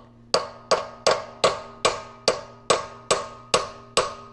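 Hammer blows on steel at a steady pace, about two and a half a second, each with a short metallic ring. The hammer is driving a shaft and bearing back inside a Minneapolis Moline G1355 tractor transmission.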